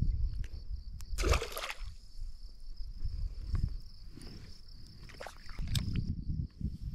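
Crickets chirring steadily outdoors. A short rushing burst of noise comes about a second in, with scattered knocks and low handling rumble.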